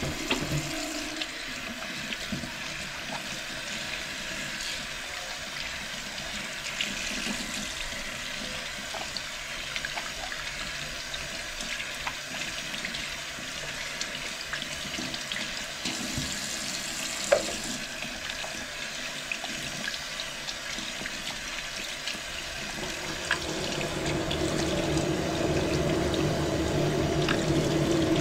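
Water running from a bathroom sink tap, splashed about by hands washing under it. Near the end a deeper humming tone joins in and the sound grows louder.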